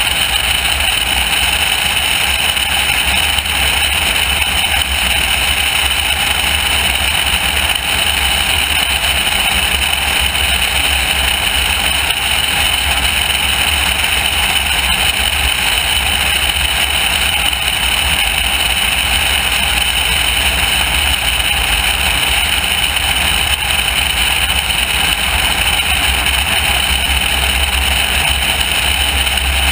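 Loud, steady wind noise on a camera mounted outside a light high-wing airplane in flight, over the steady drone of the plane's engine.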